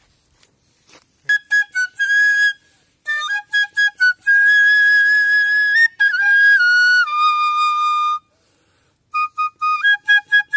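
Homemade side-blown bamboo flute (bansuri) playing a song tune. Short separate notes start about a second in, then a long held note, then a step down to a lower held note, a pause of about a second, and short notes again near the end.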